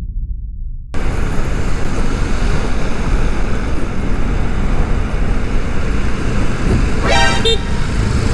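Wind rush and road noise of a scooter ride picked up by a helmet-mounted camera, heard muffled for the first second and then opening up fully. A short horn honk sounds about seven seconds in.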